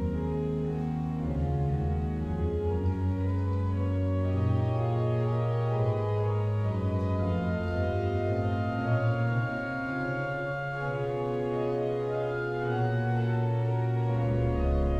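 Pipe organ playing slow, sustained chords over a bass line that moves to a new held note every second or two.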